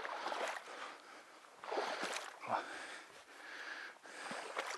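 Boots wading through shallow marsh water, sloshing and splashing with each step, several strides in a row.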